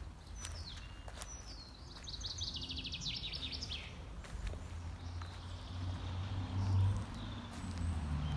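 A small songbird sings one fast trilled phrase that drops in pitch, over a steady low outdoor rumble.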